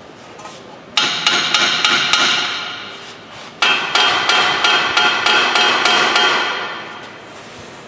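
Hammer striking steel in two quick runs of ringing blows, about four a second: about six strikes a second in, then after a short pause about ten more. The new hub and wheel bearing are being beaten up into the steering knuckle.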